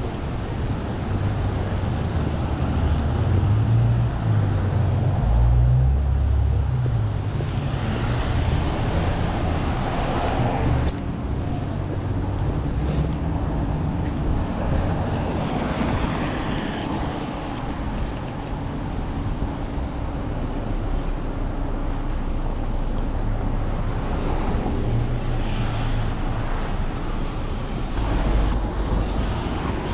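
City street ambience: traffic passing, with wind buffeting the microphone in a heavy low rumble and a few louder swells as vehicles go by.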